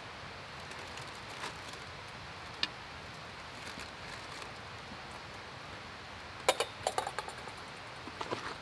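A few light clinks and knocks of small hard objects being handled: one sharp click, then a quick run of clinks about six and a half seconds in and a few more near the end, over a steady background hiss.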